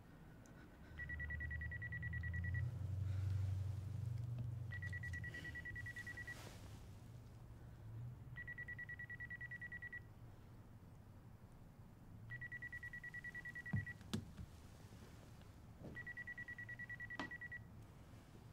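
A phone ringing tone: a high, fast-pulsed beeping ring about a second and a half long, repeated five times with about two seconds between rings. A low rumble sits under the first few seconds, and two sharp clicks come a little past the middle.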